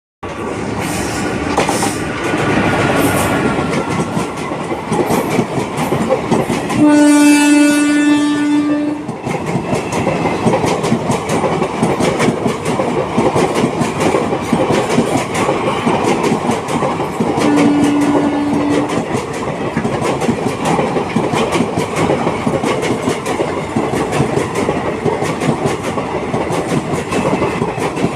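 Indian Railways WAP-4 electric locomotive's horn sounding twice over the steady running noise of the train and its wheel clicks on the rails. The first is a single-pitched blast of about two seconds, about seven seconds in. The second is shorter, about a second and a half, near eighteen seconds.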